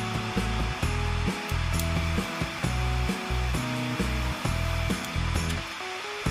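Background music with a steady rhythmic bass line, over a constant rushing hiss.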